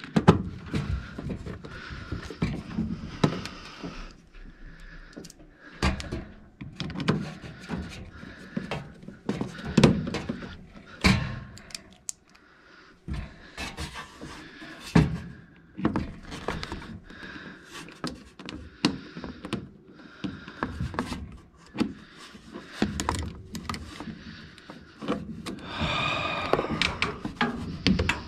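Hand-tool and parts handling under a furnace: irregular knocks, clicks and thunks as a nut driver is worked and a PVC vent pipe with a rubber coupling is pushed back onto the inducer outlet, with a longer rasping sound near the end.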